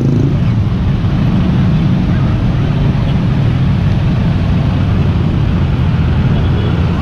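Dense road traffic, mostly small motor scooters and motorcycles with a truck among them, running past in a steady engine drone.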